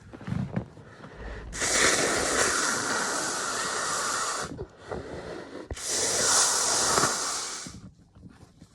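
A man breathing hard: two long, hissing breaths of about three and two seconds, with a couple of short, soft sounds just before them.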